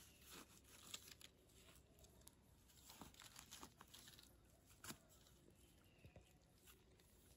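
Faint crackling and scraping as a knife and gloved hands dig mushrooms out of soil and dry leaf litter, with scattered small clicks.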